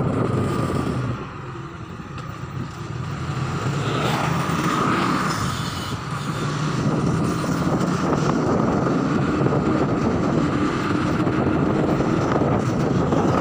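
Motorcycle engine running under way, carrying several riders, with wind rushing over the microphone. The engine eases off about a second in, then builds back up and runs steadily.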